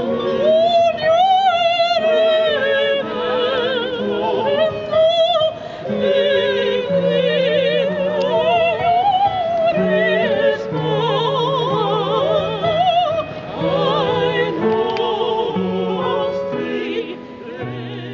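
Live operatic singing in several voices with strong vibrato, accompanied by a grand piano. The music begins to fade near the end.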